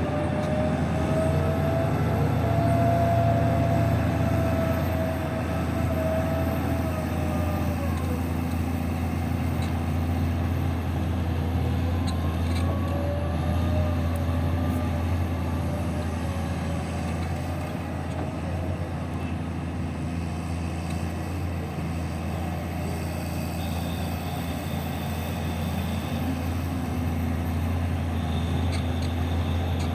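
Heavy diesel mining machinery, an excavator or haul truck, running steadily with a low drone. A thin whine slowly rises and falls in pitch over it for the first several seconds, and again in the middle.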